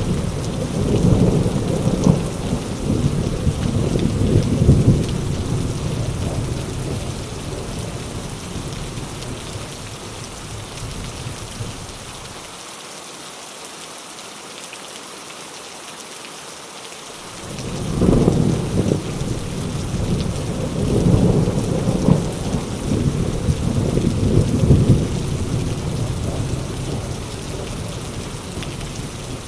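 Heavy rain falling steadily with rolling thunder. A long rumble dies away over the first ten seconds or so, leaving only the rain's hiss, then a new peal breaks in sharply about 17 seconds in and rumbles on before fading near the end.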